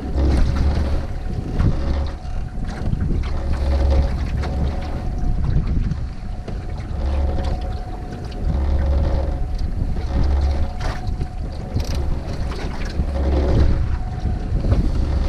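Wind buffeting the microphone in gusts every second or two, over the steady hum of a small fishing boat's motor at trolling speed.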